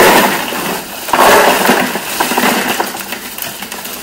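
Ice cubes poured from a bag into a plastic Igloo cooler, clattering onto ice and plastic below. A second, louder rush comes about a second in, then it tails off.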